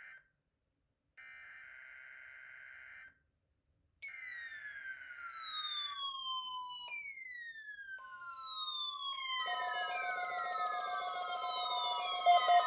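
Emergency alert tones: three buzzy data bursts about two seconds each with short silent gaps, then repeated falling siren-like sweeps and a steady alert tone. These build into a louder layered alarm that pulses rapidly near the end.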